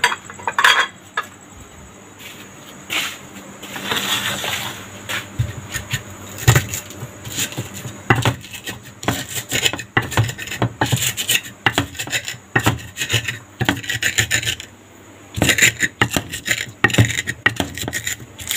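Stone pestle grinding chilies, garlic, salt and sugar for sambal in a clay mortar: irregular scraping and rubbing strokes of stone on clay, with a short pause about three-quarters of the way through.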